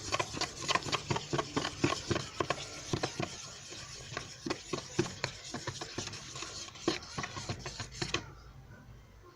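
A utensil stirring and scraping a thick mix of paste and flour in a small container: a rapid, irregular run of clicks and scrapes that stops suddenly about eight seconds in. The dough is still being worked from a sticky, slime-like stage.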